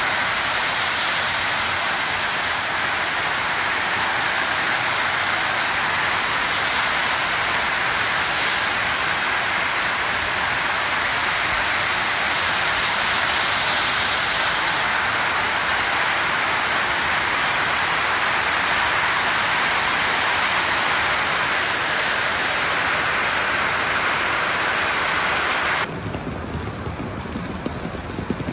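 Heavy hail and rain pelting down in a steady, dense hiss against a metal fence, paving and lawn during a severe thunderstorm. Near the end the sound cuts abruptly to a quieter, deeper rain falling on floodwater.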